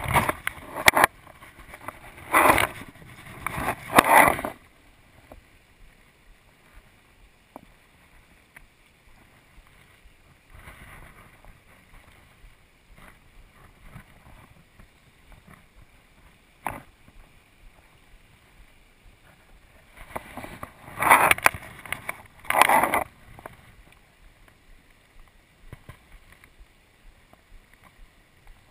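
Fly rod and line swishing in a cast, in two clusters of short loud bursts: near the start and again about two-thirds of the way through. Between them, a faint steady hiss of river water.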